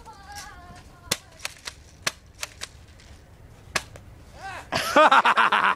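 Airsoft guns firing scattered single shots, sharp cracks a fraction of a second to about a second apart. Near the end a much louder, wavering pitched sound cuts in and takes over.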